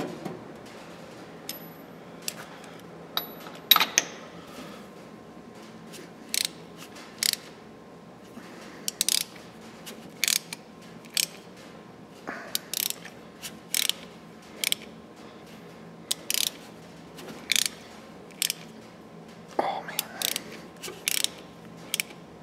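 Ratcheting box-end wrench clicking in short bursts on each back-stroke, about one burst every half second to a second, as a spark plug is worked out slowly so as not to break it off.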